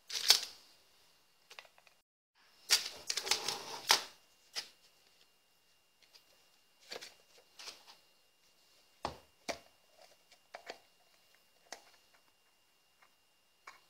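Metal tools and screwdriver bits clattering in a metal tray, loudest near the start and again around three to four seconds in, then scattered light clicks and knocks of a screwdriver working the screws of a small plastic gyroscope flywheel housing from an electric RC dirt bike.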